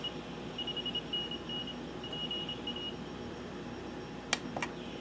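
Morse code (CW) from an amateur station received on an Eton Traveler 3 shortwave radio, heard as a high keyed beat tone over band hiss. The tone comes from beating the incoming carrier against a nearby signal generator. The keying stops about three seconds in, and two sharp clicks follow near the end as a button on the radio is pressed.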